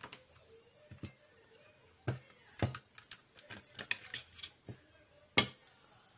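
Sharp plastic clicks and taps as a screwdriver tester pries apart the plastic case of a TV remote. The clicks are irregular, with a louder one about five and a half seconds in.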